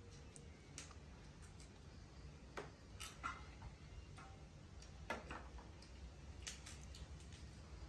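Scattered soft clicks and snaps of fresh lotus seeds being pried out of the green pod and shelled by hand, a few seconds apart, over a faint low hum.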